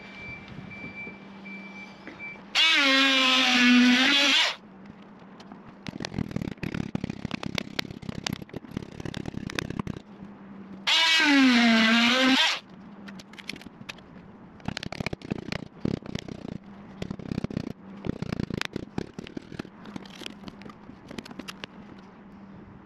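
Corded power hammer with a chisel bit running in two bursts of about two seconds each, its pitch dipping and rising, as it breaks the seal of an old caravan sunroof frame. Between and after the bursts come scattered cracks and snaps of the brittle plastic frame breaking away.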